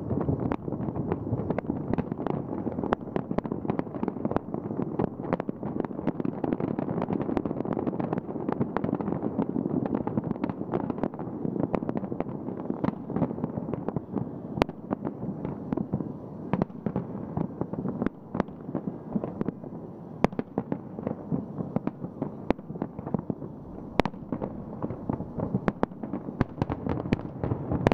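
A large fireworks display going off in a dense, continuous barrage: a constant crackle of many rapid pops and bangs over a deep rumble, with a few sharper cracks standing out, about 15, 20 and 24 seconds in.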